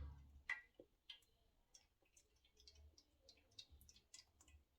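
Near silence broken by faint, scattered, irregular ticks and clicks.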